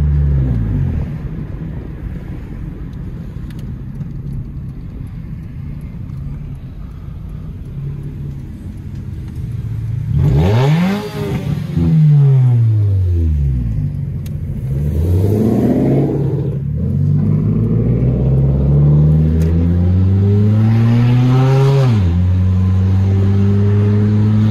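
Turbocharged Nissan Sentra SE-R's four-cylinder engine with a cat-back exhaust, heard from the cabin. It drops back to a quieter cruise, then about ten seconds in is floored and pulls hard through several gears. The pitch climbs steeply with each pull and falls back at each shift.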